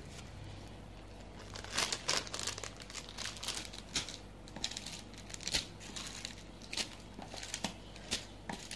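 Packaging crinkling and rustling in short, irregular bursts, several a second, as it is handled, starting about a second and a half in; a single sharp click comes right at the start.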